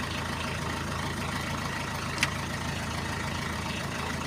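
Isuzu 4JB1 four-cylinder diesel engine idling steadily at about 800 rpm. A single sharp click about halfway through.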